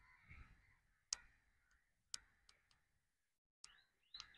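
Near silence, broken by a few sharp, isolated clicks, about five in all, irregularly spaced.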